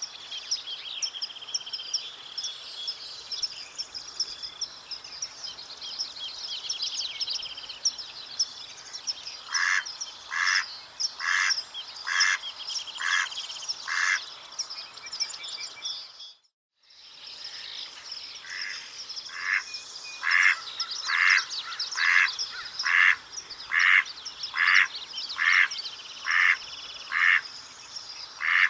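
Mallard quacking in long, evenly paced series, about one quack a second, starting about a third of the way in. The series breaks off at a moment of silence midway, then resumes with a dozen more quacks. Small birds chirp and twitter high above it throughout.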